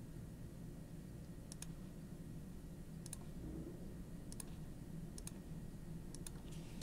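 Computer mouse clicking: sharp single clicks spaced a second or more apart, some in quick pairs, over a faint steady low hum.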